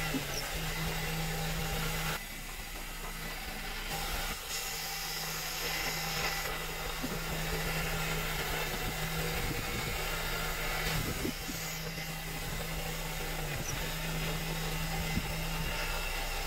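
A workshop machine's motor running steadily with a constant low hum and rushing noise, dipping briefly about two seconds in.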